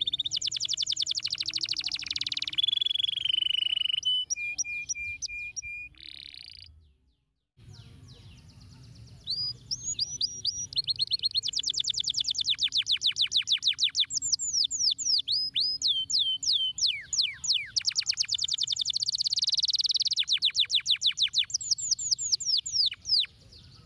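A domestic canary singing a long, loud song of rapid trills, rolls and repeated sweeping whistled notes. It breaks off briefly into silence about seven seconds in.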